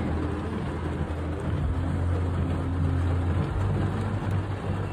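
Heavy rain pouring down on the truck and the flooded parking lot, heard from inside the cab as a steady hiss, with a low steady hum underneath.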